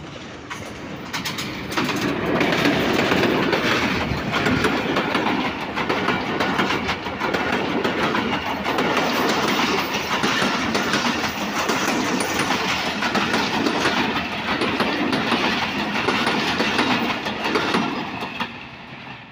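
Diesel-hauled passenger train passing close by at speed: the sound builds over the first couple of seconds as the locomotive reaches the crossing, then a long line of coaches rumbles past with a steady clickety-clack of wheels over the rail joints, falling away near the end.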